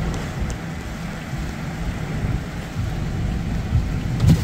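Heavy rain falling on a car's roof and windows, heard from inside the cabin as a steady rushing noise that is heaviest in the low end, with a single knock near the end.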